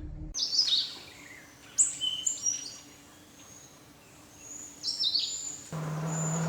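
Birds chirping: several runs of quick, high notes that slide downward, with quieter spells in between. A steady low hum comes in near the end.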